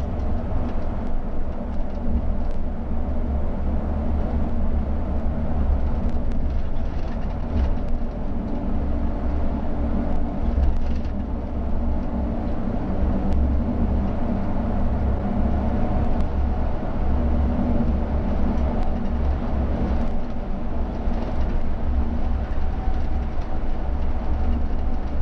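Bova FHD coach's diesel engine and drivetrain pulling on the road, heard from inside the cab as a steady low rumble. The engine note steps several times as the ZF AS-Tronic 12-speed automated gearbox is shifted through its gears by hand.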